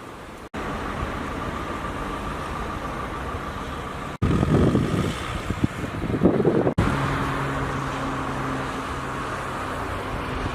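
Outdoor street ambience in short cut-together shots: a steady wash of traffic noise, then wind buffeting the microphone for a few seconds, then a vehicle engine idling with a steady low hum.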